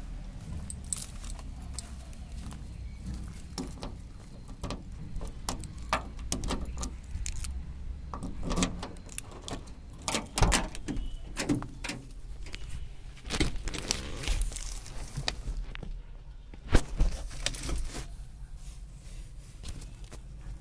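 Scattered clicks, taps and jingly rattles of things being handled, over a low steady rumble, with one sharp knock about three-quarters of the way through.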